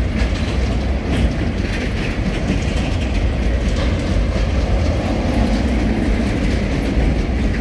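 Freight train ballast hopper wagons rolling past: a steady rumble of steel wheels on the rails, with occasional clicks.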